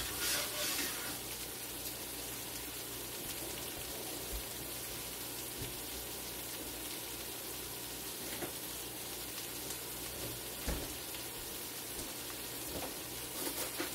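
Chicken and vegetables sizzling steadily in a skillet on a gas burner, with a short louder rattle in the first second as the pan is handled.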